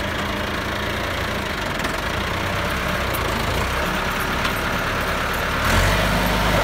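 Massey Ferguson 375 tractor's four-cylinder diesel engine running under load as the tractor strains to drive out of a muddy ditch, growing louder near the end as it is given more throttle.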